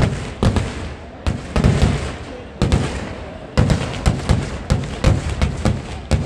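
Festival fireworks display: a rapid, irregular barrage of loud bangs, sometimes several a second, each trailing off in a low rumble.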